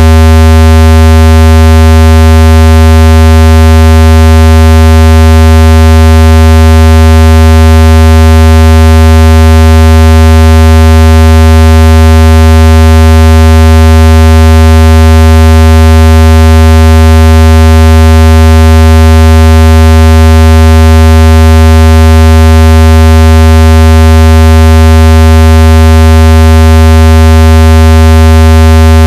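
Synthesized speaker-cleaning tone: a loud, low buzzing tone with many overtones, held steady without change, meant to vibrate water and dust out of a phone speaker.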